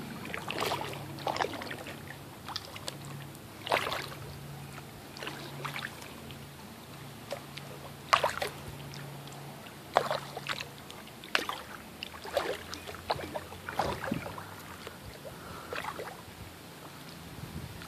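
Kayak paddle strokes in calm water: the blade dips and splashes at irregular intervals, about one every second or two, with drips in between.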